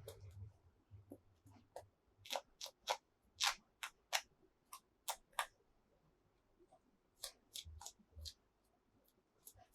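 Small plastic toy pieces tapped and clicked against each other: a string of short, sharp clicks, mostly in two runs, one from about two seconds in and another near the end.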